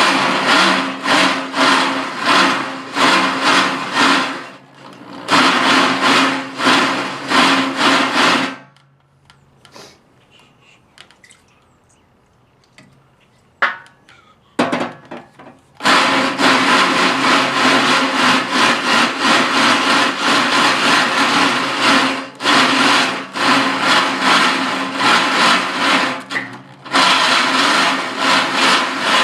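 Electric drill boring a 3/4-inch hole through a steel tooth bar with a grinding, rasping cut, enlarging a hole already stepped up through smaller bits. It runs in long stretches, stops for a few seconds of near quiet about eight seconds in, and then cuts almost steadily to the end.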